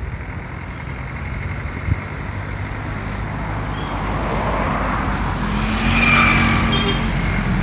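Street traffic: engines of passing vehicles running steadily, growing louder to a peak about six seconds in as motorcycles pass close by.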